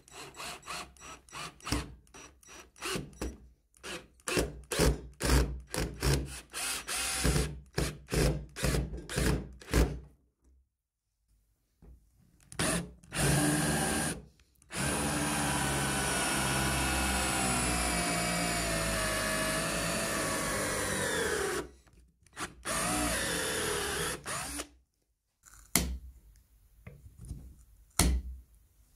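Electric drill run in many short bursts with a screw bit in the wooden head of a rocking horse. Then it bores into a pine block with a wide bit: a long steady run whose pitch sinks near the end as the bit bites, and a second shorter run. A few light knocks come near the end.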